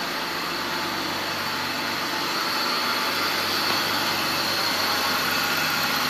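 2002 BMW 525i's 2.5-litre straight-six idling steadily, its misfire on cylinders 2 and 4 cured by two new ignition coils.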